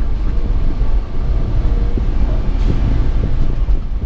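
1993 Honda Acty kei truck's 660cc three-cylinder engine running under way, with road and tyre noise, heard from inside the small cab as a loud, steady low rumble.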